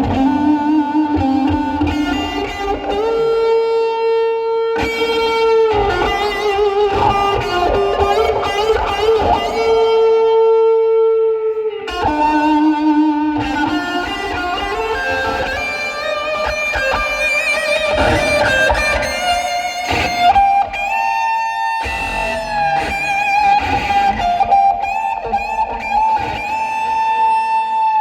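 Live instrumental music led by an electric guitar playing a slow melody of long held notes that bend and waver in pitch, over a low bass.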